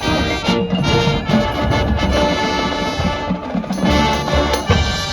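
High school marching band playing its field show live: brass with percussion, loud and full.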